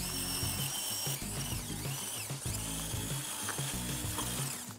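Small electric motor and gearbox of a radio-controlled toy tractor whining. The pitch dips and climbs back a couple of times as it slows and speeds up, then runs steady before cutting off near the end.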